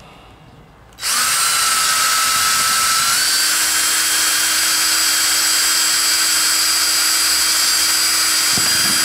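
Power drill with a 7.5 mm twist bit boring a hole into a small white plastic part. It starts about a second in and runs at a steady speed with a high whine, and its pitch shifts slightly about three seconds in.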